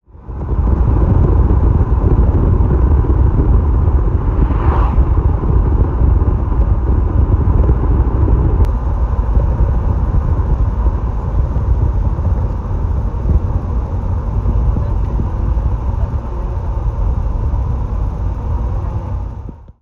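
Car driving along a road, heard from inside: a steady low rumble of engine and tyre noise, fading in at the start and out at the end.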